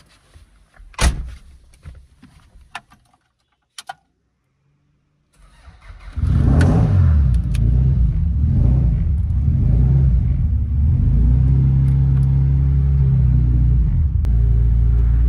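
A few clicks and a sharp knock, a short silence, then a car engine comes in about five and a half seconds in and runs loud and steady, with slight shifts in pitch as it is revved.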